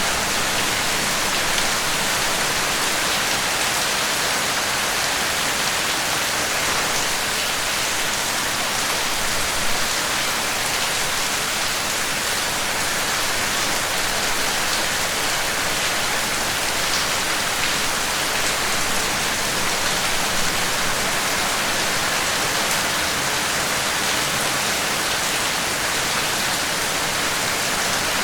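Steady rain falling, an even hiss with faint drop ticks and no change in intensity.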